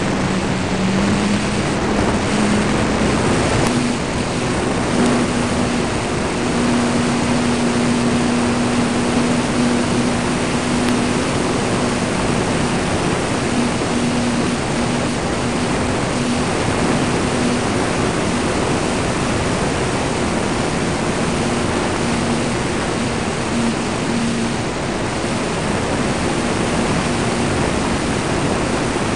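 ParkZone T-28 Trojan RC plane's electric motor and propeller humming in flight, under a steady rush of wind over the belly-mounted camera's microphone. The hum rises slightly in pitch about a second in, then fades in and out in the second half.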